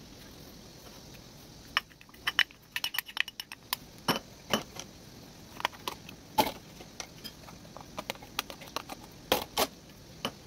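Irregular clicks and knocks of a plastic spoon and plastic food tray being handled as chopped salad ingredients are spooned in, with a few sharper taps scattered through.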